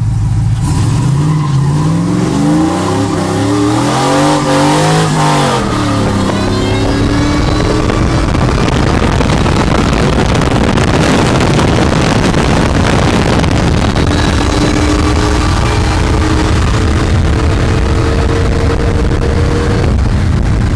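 Car engines at full throttle in a street dig race from a standing start, heard from inside a car. The engine note climbs and drops back several times through the gear changes in the first six seconds, then gives way to a loud steady rush of wind and road noise at speed.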